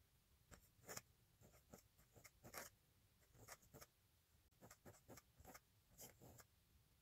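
Pointed calligraphy nib scratching faintly across paper in short strokes and clusters, starting about half a second in, as a line of pointed-pen script is written.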